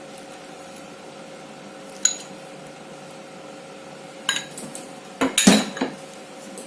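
A spoon clinking and scraping against a bowl as ginger, garlic and green chilli paste is spooned onto chicken for the marinade: one sharp clink about two seconds in, then a run of knocks and scrapes from about four to six seconds in.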